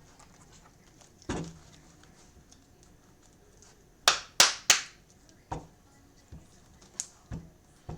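Sharp taps and knocks from trading cards being handled and set down on a table: one knock, then three quick sharp taps about halfway through, and a few lighter taps near the end.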